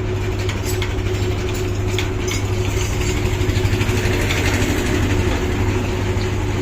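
Scattered metallic clicks and scrapes of hand tools on a stripped motorcycle engine, over a steady low mechanical hum.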